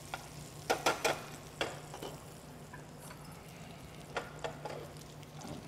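Diced bacon sizzling faintly in a stainless steel sauté pan, with metal tongs clicking against the pan in a few sharp clicks about a second in and again past four seconds.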